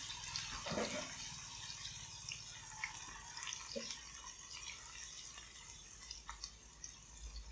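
Battered tofu and mushroom pieces deep-frying in a pan of hot oil: a steady sizzle with scattered small pops and crackles.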